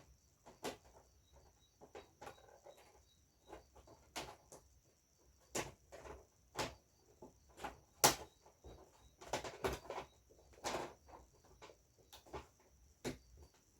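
Irregular light clicks and knocks of TV parts being handled and set in place during a repair, a few louder than the rest. A faint steady high whine sounds behind them.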